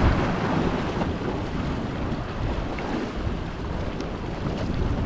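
Wind buffeting the microphone in a low rumble, over sea waves washing and splashing against a rocky shore.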